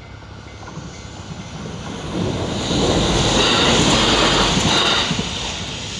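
Train passing through a level crossing, growing louder to a peak in the middle and then fading. The crossing's warning bell rings in steady repeated tones at the start, then is drowned out by the train.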